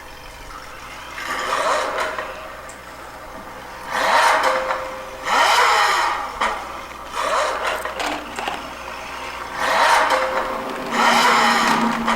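Sports-car engine sound revving in short bursts, about six times, with rising and falling pitch between the bursts, as played for an RC LaFerrari.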